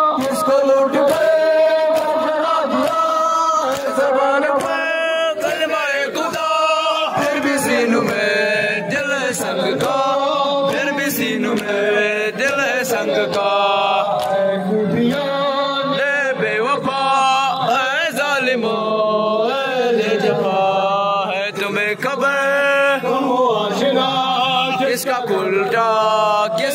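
Male voices chanting a noha, a Shia lament, in a sustained melodic recitation amplified through handheld microphones. It runs over a rhythmic slapping of chest-beating (matam) by the mourners.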